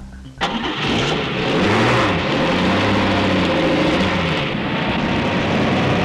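Heavy construction-vehicle engine sound effect. It starts suddenly about half a second in and revs, its pitch rising and falling.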